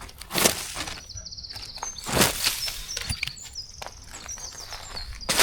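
A small songbird singing in short, high chirping phrases, with a few crunching footsteps on dry forest litter.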